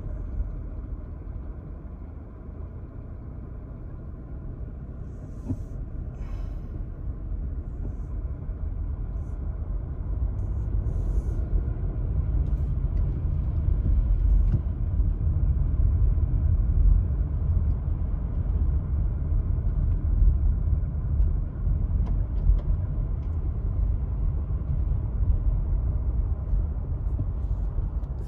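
Low, steady rumble of a car's engine and tyres heard from inside the cabin while driving on a wet, slushy road. It grows louder about ten seconds in.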